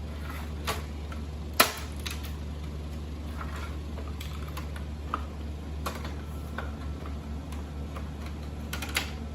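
Scattered sharp clicks and knocks of plastic and metal parts being handled and pried loose while a VCR is taken apart, with the loudest knock about a second and a half in. A steady low hum runs underneath.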